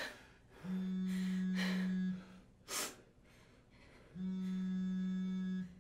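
A phone vibrating against a hard surface: two steady low buzzes of about a second and a half each, about three and a half seconds apart, with a short gasp-like breath between them.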